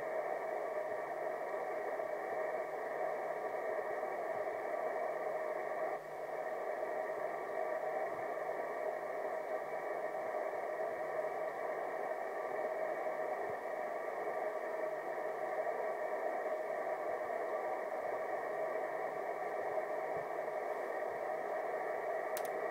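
Steady hiss from a Yaesu FTM-350 mobile transceiver's speaker, cut off above the voice range, with a brief dip about six seconds in.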